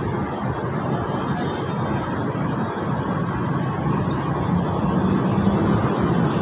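Steady low rumble of city traffic, swelling slightly about four seconds in.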